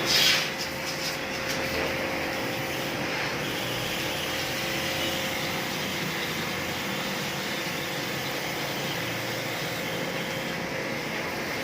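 An LG air conditioner running with a steady whirring hum that holds a few constant tones. A short, loud hiss comes right at the start.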